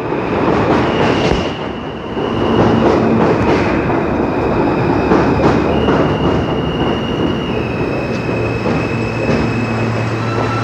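R160A subway train with Alstom propulsion pulling into a station. Dense rumbling and rattling of wheels on track, with a steady high whine that steps down in pitch as it slows. Near the end it settles into a steady low hum as it stands.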